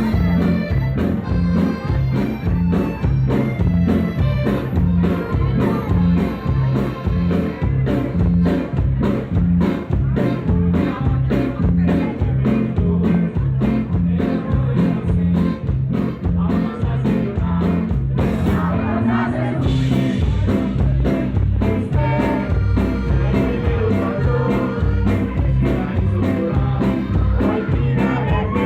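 Loud rock music with a steady drum beat and a prominent bass line, with some singing.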